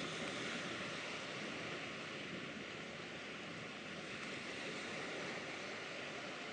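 Steady rush of wind and river water, an even noise with no distinct events.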